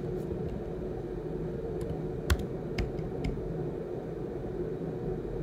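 A handful of scattered key presses on a computer keyboard as numbers are typed into a spreadsheet, the loudest about two seconds in, over a steady low hum.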